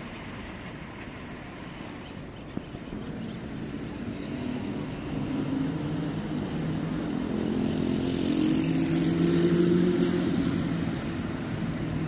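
A motor vehicle's engine running, growing steadily louder to a peak about eight to ten seconds in and then easing off a little, as it passes close by.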